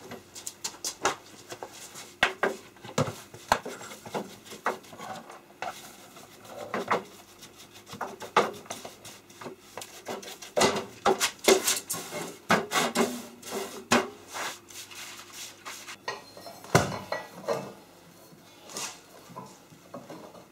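Irregular metallic clinks, knocks and scraping as steel pieces and metal chips are handled and moved about; no machine is running.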